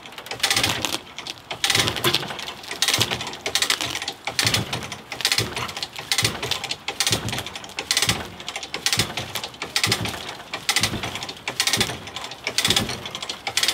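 Hand ratchet being worked in steady strokes, about one a second, each stroke a quick run of clicks, as it pulls the car sideways out of the mud.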